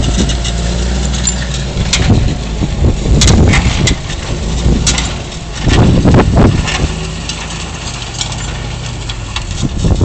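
Large farm tractor's diesel engine running steadily under load while pulling a five-furrow reversible plough through the soil. A louder, rougher surge comes about six seconds in.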